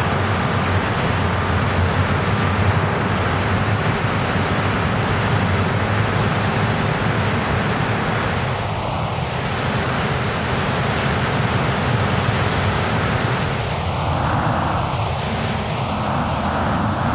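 Steady city traffic noise: a city bus and cars moving past on wet pavement, a low engine rumble under a hiss of tyres on the wet road.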